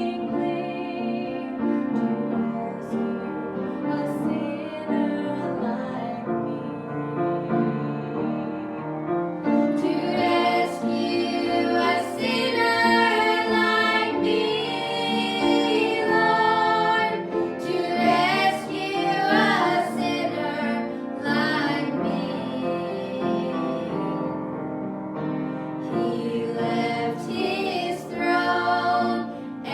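A hymn or worship song sung by voices over instrumental accompaniment, growing fuller and louder about a third of the way through.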